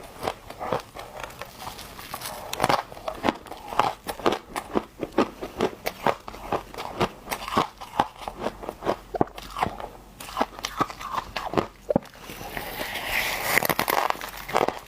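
Close-up biting and chewing of hard, refrozen humidifier frost chunks, a rapid, irregular run of sharp crunches. The crunching grows denser and grittier a little before the end.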